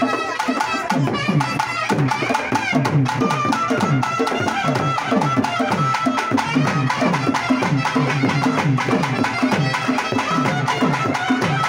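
Naiyandi melam, a Tamil temple folk band, playing: fast, driving drumming with a wind instrument holding long high notes over it.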